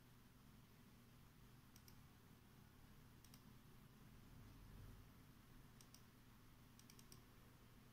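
Near silence with a low steady hum of room tone, broken by faint computer mouse clicks: short double clicks about two, three and six seconds in, and a quicker run of several about seven seconds in.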